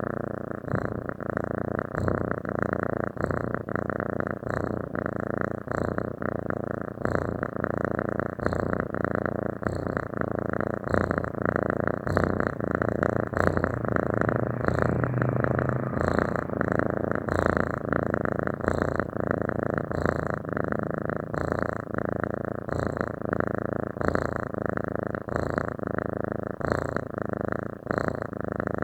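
Domestic cat purring continuously, a fast, even pulsing that holds steady throughout.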